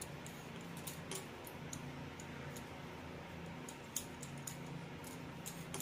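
Faint, scattered light clicks and taps of a wooden rolling pin working a ball of dough on a countertop, with a sharper tap about four seconds in, over a low steady hum.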